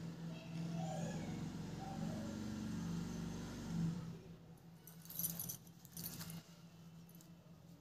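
A metal ladle stirring a watery curry in an aluminium pressure cooker pot, scraping and clinking against the metal in a short flurry about five to six seconds in. A steady low hum runs underneath.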